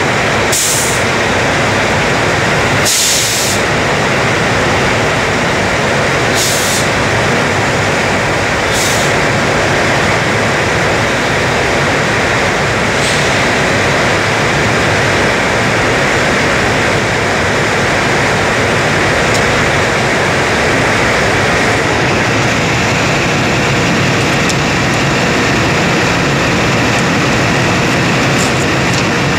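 Diesel fuel rushing from a truck-stop pump nozzle into a truck's fuel tank, a loud steady noise, with several short hisses in the first half.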